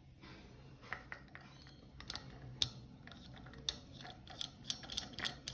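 Faint, irregular small metallic clicks and taps as a tap's cap is threaded back on by hand, the clicks coming more often toward the end.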